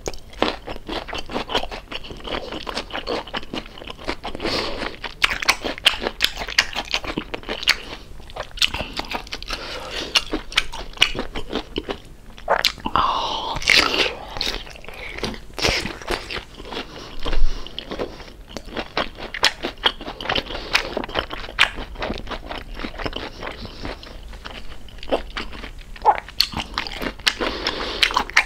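Close-miked crunching and chewing of crispy deep-fried pork belly (lechon kawali), in many irregular crisp bites throughout.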